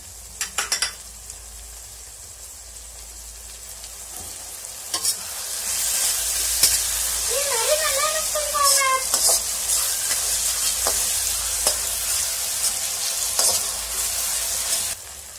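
Onions, tomatoes and chillies sizzling in a kadai while a metal spatula stirs them, scraping and clicking against the pan. The sizzling gets louder about five seconds in, as the stirring picks up.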